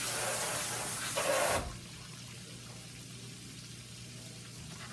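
Kitchen tap running into the sink, growing louder for a moment before it is shut off about one and a half seconds in. After that, shrimp frying in a skillet of oil sizzle quietly.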